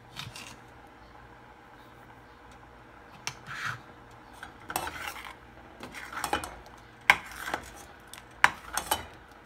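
Metal spoon stirring thick gravy in a stainless steel saucepan. It clinks and scrapes irregularly against the pan, with several sharp clinks in the second half.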